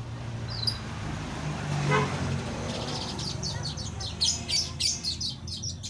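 Female weaver bird (manyar) giving a rapid run of high, short chirps from about halfway through, calling to the male. Underneath is a steady low rumble of background noise, with a brief low pitched tone about two seconds in.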